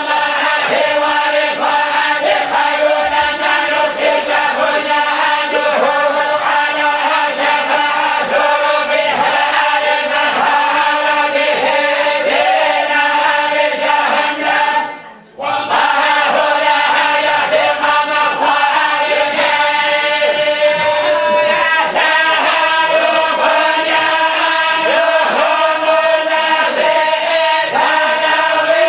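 A group of men chanting together in unison, a steady, drawn-out religious chant; it breaks off for a moment about halfway through.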